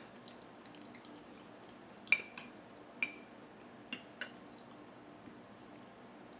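Metal spoon clinking against a small glass bowl while stirring and scooping dipping sauce: a handful of sharp, short ringing clinks, the loudest about two seconds in, with soft liquid sounds between.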